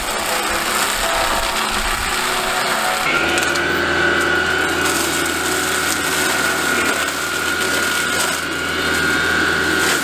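Baumalight MS560 skid-steer brush mulcher's spinning fixed-tooth drum chewing through wood and branches: a dense, continuous grinding noise. About three seconds in the sound shifts to a steady high whine from the drum over a low engine hum.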